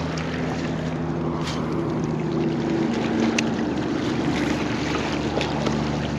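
A steady low engine drone under wind and water noise, with two brief faint clicks.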